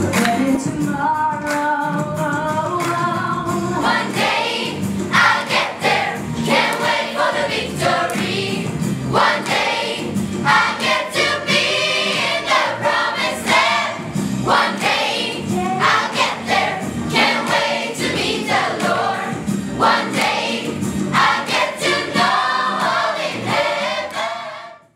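A choir singing with musical accompaniment, fading out just before the end.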